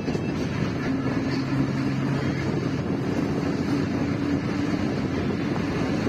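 A vehicle's engine running steadily at cruising speed, with a low hum, road noise and wind on the microphone as it drives along a flyover.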